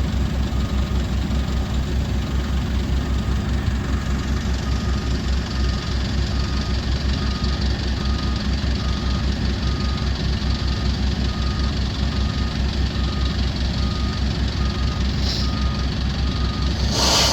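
Truck engine running with a steady low throb, and a short electronic beep repeating about every three-quarters of a second. A louder rush of noise comes near the end.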